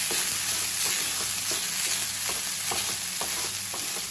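Leftover rice sizzling in hot oil in a nonstick frying pan as a wooden spatula stirs it, with a steady hiss and frequent short scrapes and taps of the spatula against the pan.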